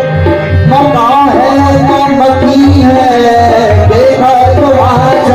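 Qawwali music: tabla beating steadily under sustained, wavering melodic lines with singing.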